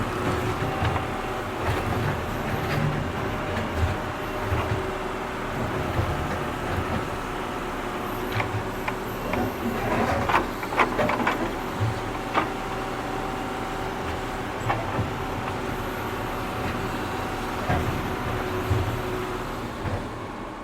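A tractor's engine running steadily while it digs, with scattered metallic clanks and knocks from the digging gear, clustered about halfway through.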